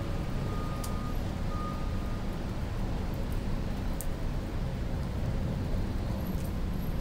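Steady rain on a wet parking deck: an even hiss over a heavy low rumble, with a faint tick now and then.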